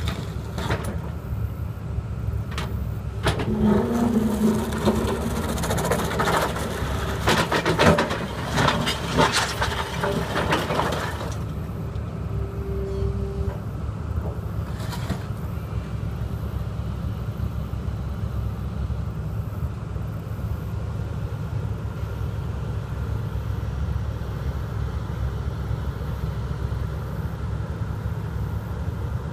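Large tracked excavator's diesel engine running steadily while its bucket digs into broken cinder-block and concrete rubble: a dense string of clattering knocks and scrapes from about three seconds in to about eleven seconds, one more knock a few seconds later, then only the engine's steady drone.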